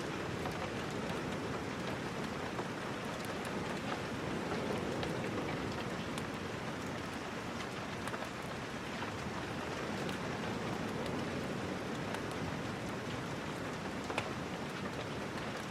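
Steady rain falling, with scattered small clicks through it.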